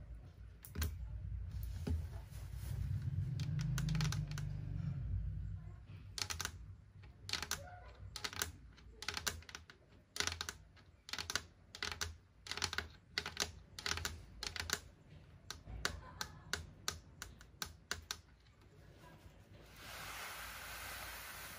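Long painted fingernails tapping and clicking on a hard tabletop in quick, irregular taps. A soft rustle comes near the end as a plastic-wrapped parcel is handled.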